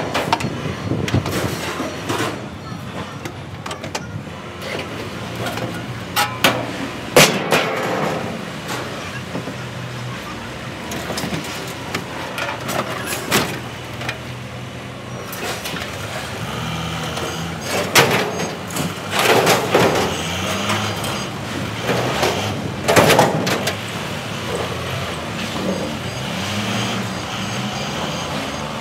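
Scrap yard noise: forklift and vehicle engines running, with several sharp clanks and bangs of scrap metal, the loudest about seven, eighteen and twenty-three seconds in.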